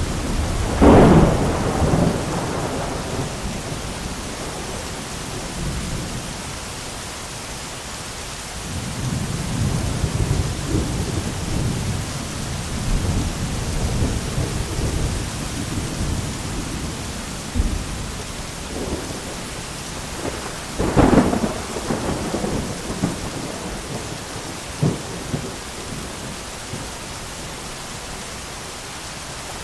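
Thunderstorm: steady rain over rolling thunder. A loud thunderclap comes about a second in, a long low rumble runs through the middle, and another sharp clap comes about two-thirds of the way through, with fainter rumbles around it.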